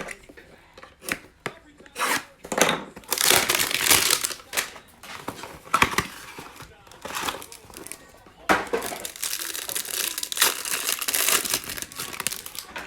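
Cellophane wrappers of trading-card cello packs crinkling and tearing as they are ripped open by hand, in two long stretches with a short break between them, and a few separate crackles before.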